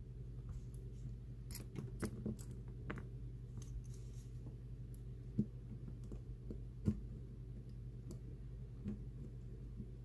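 Small metal-on-metal clicks and ticks from handling the American Lock 1105 padlock's removed brass lock cylinder and a thin metal tool during disassembly, about seven sharp clicks spread out over a low steady hum.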